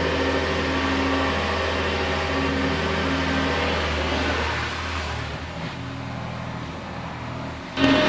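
New Holland L775 skid steer's engine running steadily. It falls quieter a little after halfway as the machine moves off, then comes back in suddenly louder near the end.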